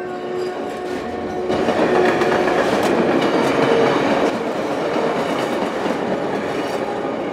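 A train passing close by, rumbling with wheel clatter. It swells about a second and a half in and is loudest until about four seconds in.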